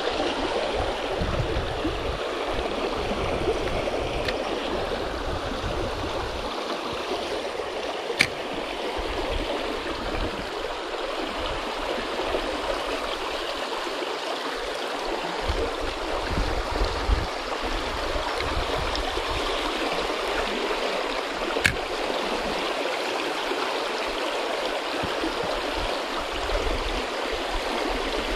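River current rushing and gurgling steadily around driftwood and debris close by. Two brief sharp clicks stand out, one about a third of the way in and one near the end.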